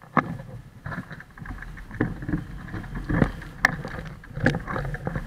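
Rumble with irregular knocks and rattles from a moving action camera and its mount, jolted by bumps on a paved path.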